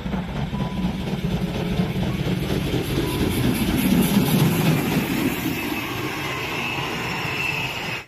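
Steam locomotive running past at speed, a dense mechanical rumble and rush of noise that is loudest as it goes by about four seconds in.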